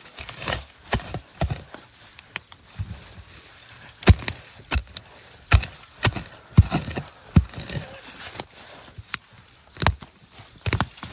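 Chopping with a blade on a wooden surface: a run of sharp, uneven strokes, about two a second.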